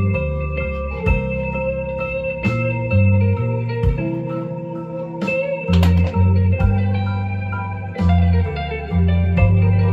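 Background music led by a plucked guitar over a bass line, with a steady beat.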